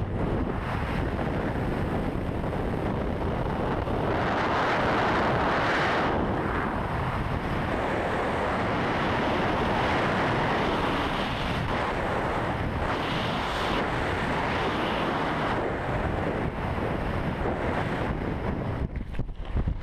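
Wind rushing hard over a helmet-mounted camera's microphone during wingsuit flight, a steady roar of air that eases and turns gusty near the end.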